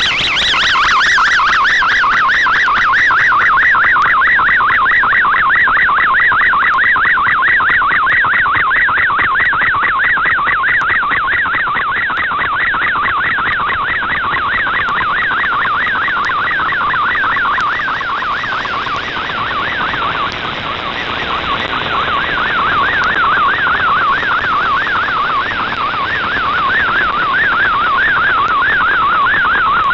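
Shortwave RadioGram digital data transmission from WRMI on 7730 kHz, heard through an SDRplay RSP2 receiver: a fast warbling run of MFSK tones hopping up and down in pitch over steady band hiss. The signal fades down and comes back about two-thirds of the way through.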